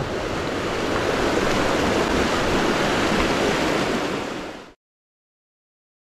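Steady rush of a swollen mountain stream running in high water, which fades out to silence about four and a half seconds in.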